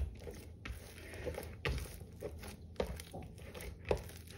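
Hand folding and turning over wet sourdough dough in a plastic tub: a few short, irregular sticky sounds of dough against hand and plastic, roughly half a second to a second apart.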